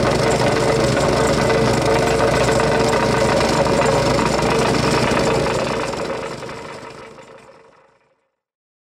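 Vibratory plate compactor running steadily as it is worked over a fresh asphalt patch, its small engine and vibrating plate giving a constant droning hum; the sound fades away over the last few seconds.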